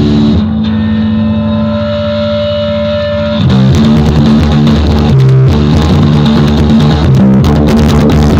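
Electric bass guitar played through an amp: one held note rings for about three seconds, then a riff of short, repeated low notes with a brighter, grittier edge.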